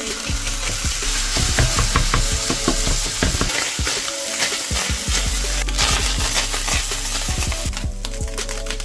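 Ground beef sizzling in a hot cast-iron skillet, with the repeated scrape and tap of a utensil breaking up and stirring the meat as it browns.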